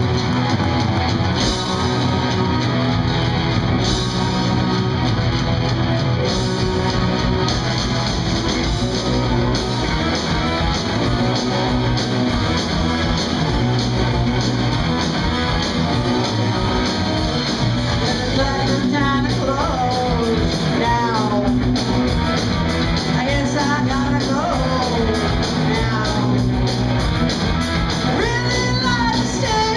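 Live rock band playing through a club PA, heard from the crowd: electric guitar, bass and drums, with cymbal crashes through the opening instrumental and vocals coming in a little past the midpoint.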